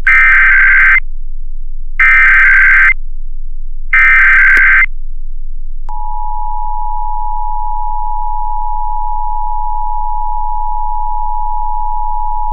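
Emergency Alert System alert opening: three bursts, about a second each and a second apart, of the warbling digital SAME header tones that encode the Required Monthly Test, then the steady two-tone EAS attention signal starting about six seconds in.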